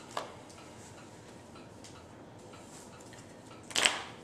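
Sleeved playing cards being handled on a cloth playmat: a light click shortly after the start, then a brief sliding rustle near the end.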